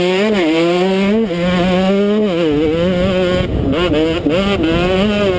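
KTM 125 SX two-stroke single-cylinder engine at racing speed, its pitch repeatedly climbing and dropping as the throttle is worked and gears change. Low wind rumble on the helmet-mounted camera.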